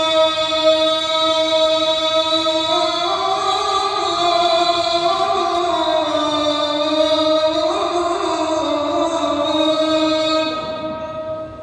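A single man's voice chanting in the mosque in long, held notes that bend slowly up and down: Islamic liturgical chant, fading away near the end.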